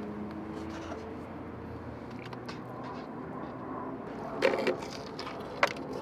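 Biting into a crispy breaded chicken tender and chewing: a loud crunch about four and a half seconds in, then a short sharp crack about a second later.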